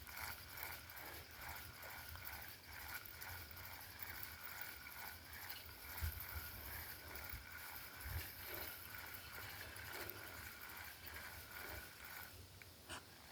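Spinning fishing reel being cranked to retrieve the lure, its handle and gears giving a light, even clicking about three times a second that stops near the end.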